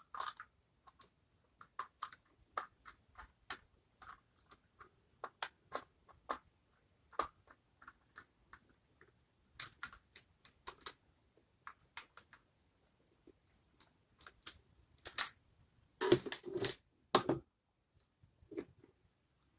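Scattered sharp clicks and taps from a plastic power strip casing being handled and pried open with a tool, with a louder bout of clattering about sixteen seconds in.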